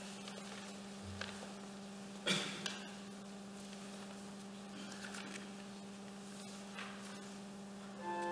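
Quiet room with a steady electrical hum and a few soft knocks and rustles, the sharpest knock about two seconds in. Just before the end, a keyboard starts playing sustained organ-like chords.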